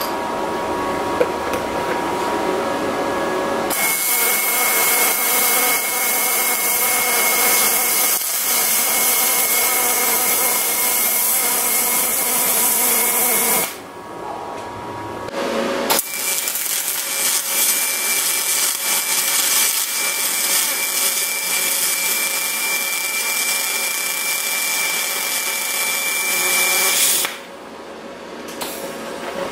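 Aluminum MIG welding with a spool gun in spray transfer: two continuous arc runs of about ten seconds each, a steady hiss with a thin high whine, broken by a gap of about two seconds.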